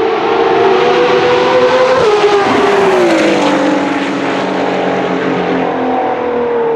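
Ferrari track car's engine running at high revs on track, its pitch drops steeply about three seconds in and then holds a lower steady note.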